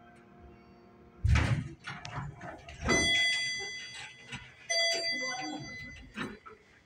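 A thump about a second in, then a Montgomery KONE elevator's electronic arrival tone sounding twice, each a high beep lasting over a second, as the car reaches its floor.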